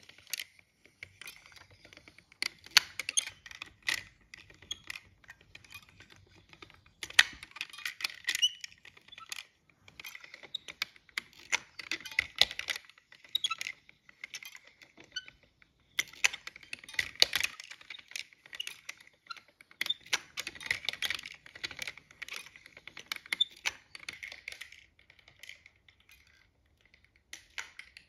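Wooden and brass mechanism of a hand-cranked automaton clicking and clattering as it is turned. Gears, cams and levers tick and knock in irregular clusters, with short quieter pauses between them.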